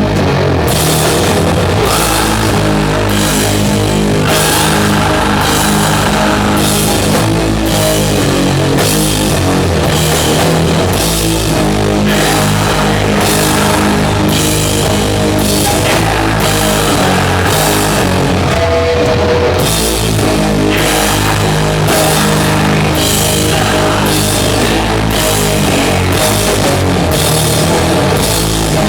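A heavy metal band playing live and loud: distorted guitars and bass over drums, with cymbal strokes at a slow, even pace of about one a second. The cymbals drop out briefly about two-thirds of the way through, then come back in.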